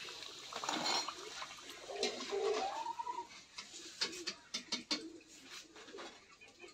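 Steel slotted spoon clinking and scraping against a steel kadhai and plate as fried pitha are lifted out of the oil, with a row of sharp clicks about four to five seconds in. A short pitched call that rises in pitch sounds in the background about two seconds in.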